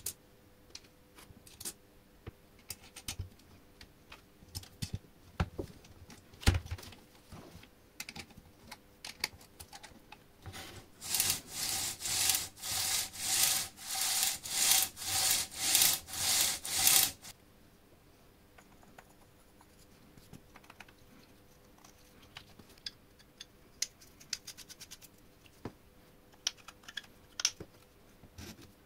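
Saw chain running by hand around a steel chainsaw bar and over its drive sprocket, the links rasping in about a dozen regular strokes, two a second, for some six seconds midway through. Before and after, light metallic clicks and taps of small parts being handled.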